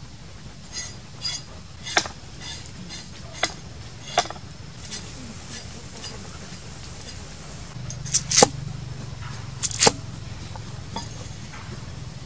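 Cleaver slicing a white radish on a wooden chopping block: a run of quick knocks of the blade on the board, then two louder double knocks a few seconds later.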